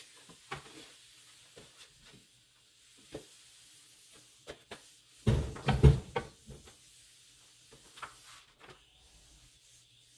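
Handling noises as parts and packaging are moved about: scattered light knocks and clicks, with a louder burst of thumps and rattling about five to six seconds in.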